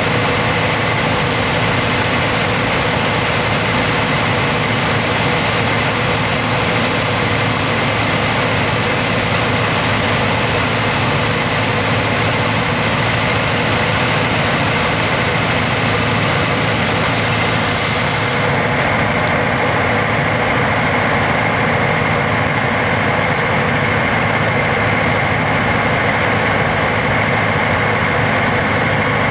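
Aeronca 7AC Champion's engine and propeller droning steadily, heard from inside the cockpit with wind noise. About two-thirds of the way through there is a brief rush of hiss, after which the high hiss eases.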